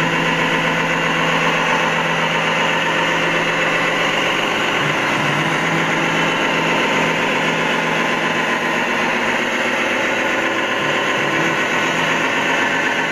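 Radio-controlled construction vehicle with an engine sound running steadily at an even idle.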